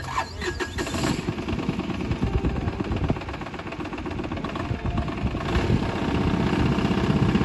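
ATV (quad bike) engine running with a fast, rough low rumble, growing louder toward the end.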